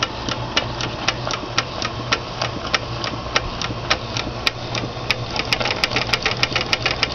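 Small antique steam engine and Simplex steam feed pump running on live steam, making a steady rapid clicking at about four clicks a second that quickens about four and a half seconds in, over a low steady hum.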